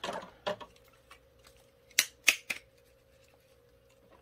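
Hard plastic toy parts of a Shogun Ultrazord and Titanus clicking and clacking as they are handled and fitted together. There are about five sharp clicks, with the loudest pair about two seconds in.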